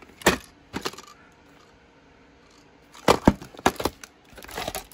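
Plastic clamshell VHS case being handled and opened: two sharp plastic clicks within the first second, then a quick cluster of clicks and knocks about three seconds in as the case is unsnapped and swung open.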